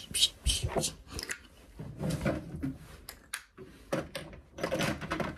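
Small objects being picked up and handled, making short clicks and knocks, with a faint voice murmuring now and then.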